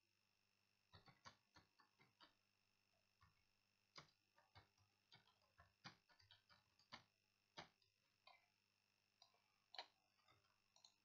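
Faint clicking of computer keyboard keys typing, irregular keystrokes in quick runs with short pauses between them. A faint steady electrical whine lies underneath.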